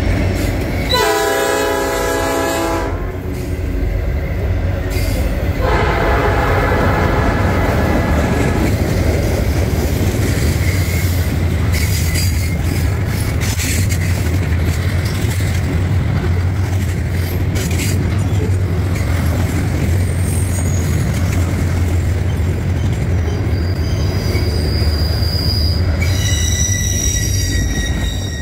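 Continuously welded rail freight train rolling past: the locomotive's air horn sounds about a second in and again, fainter, around six seconds in. The steady rumble and clatter of the rail cars follows, with a high thin wheel squeal near the end.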